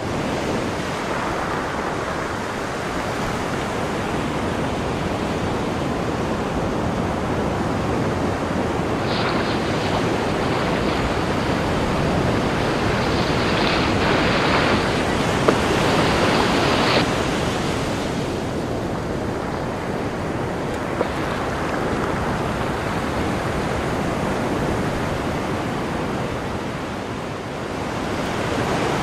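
Steady rushing of ocean surf, an even noise with no separate strokes, a little louder and hissier in the middle.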